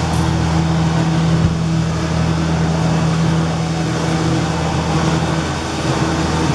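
Electric hoist motor of a home-built elevator running steadily under load as the cage travels down, a constant hum with a hiss over it.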